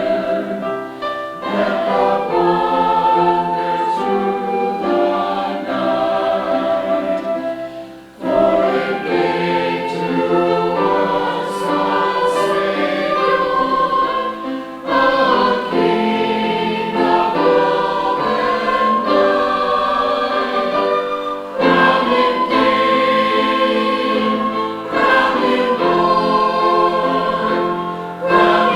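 Choir singing held chords in long phrases, with a brief break about eight seconds in.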